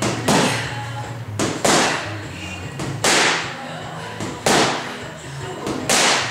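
Boxing gloves smacking into focus mitts, a sharp hit about every second and a half, some led by a lighter one just before, over background music.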